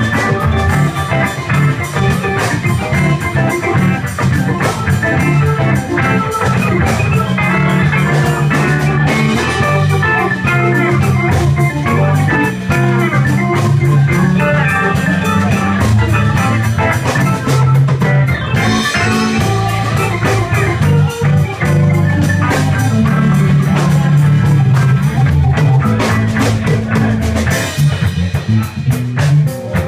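Live blues band playing an instrumental stretch: keyboards, electric bass guitar, drum kit and electric guitar.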